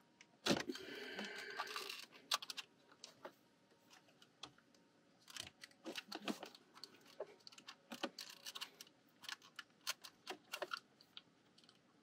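Light plastic clicks and rattles as the climate control panel of a 2nd-gen Toyota Tacoma is handled and its wiring connectors are worked loose. A sharp click about half a second in is followed by a scraping rasp lasting about a second, then scattered small clicks.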